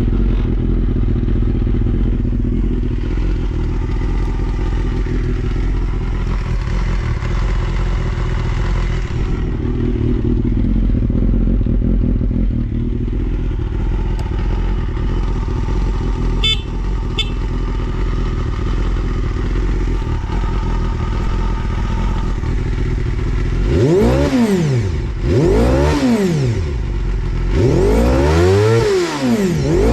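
Honda Jade's 250 cc inline-four idling steadily through a WR'S four-into-one full exhaust. Near the end it is revved in several quick throttle blips, each rising and falling in pitch. It runs cleanly with no abnormal noise.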